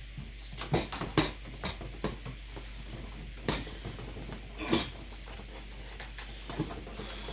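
Irregular clicks and knocks of gaming-chair parts and metal screws and nuts being handled and fitted during assembly, under a steady low hum.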